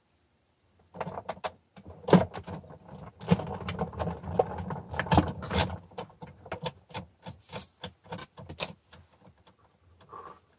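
Stack of plastic cutting plates being rolled through a manual die-cutting machine to press hot foil onto card. It starts about a second in with many irregular clicks and knocks over a low rumble, and dies away a second or so before the end.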